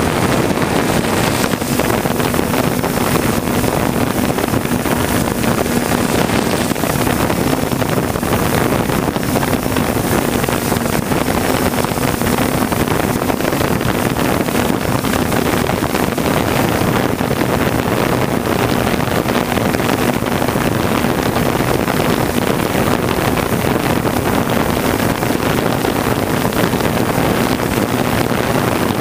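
3DR Solo quadcopter's motors and propellers heard from the camera mounted on it: a steady hum held at one pitch over a rushing noise, with wind buffeting the microphone.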